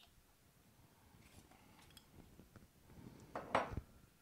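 Kitchen utensil clinking and scraping against a container, as bouillon paste is measured out, with faint light clicks and one louder scraping clatter about three and a half seconds in.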